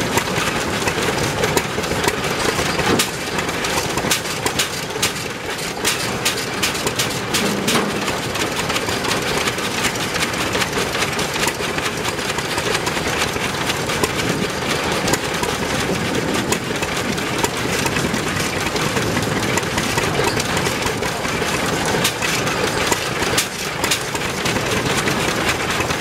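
Old stationary engines with big flywheels running together, with sharp, irregular firing knocks over a steady mechanical clatter.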